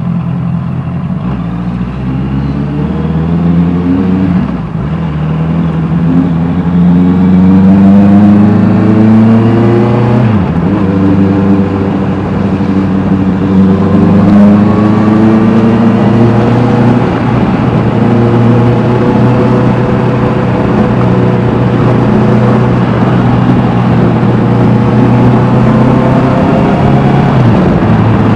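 Honda CBR650R's inline-four engine through an Austin Racing aftermarket exhaust, pulling hard with the pitch climbing and two quick drops for upshifts in the first ten seconds. It then holds a steady high note while riding on.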